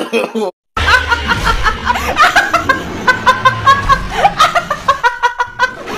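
A woman laughing hard in quick, repeated high-pitched bursts.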